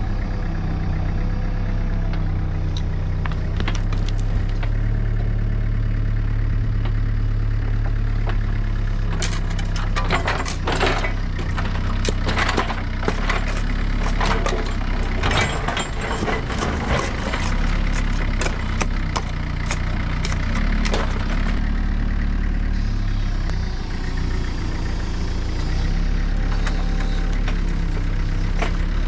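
John Deere 50ZTS mini excavator's diesel engine running steadily while backfilling dirt, with a run of quick clanks and scrapes from about ten seconds in to about twenty-two seconds.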